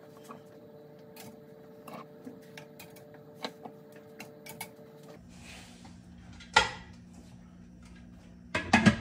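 Light clinks of glass canning jars as they are set into a pressure canner. Then one loud metal clank, and near the end a quick cluster of clanks as the canner lid is handled and set onto the pot.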